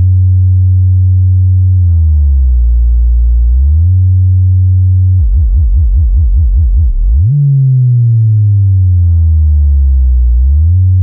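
Loud synthesized bass test tones for checking a subwoofer. A steady deep drone drops in pitch and comes back, then pulses fast for a couple of seconds, then glides slowly downward through the second half.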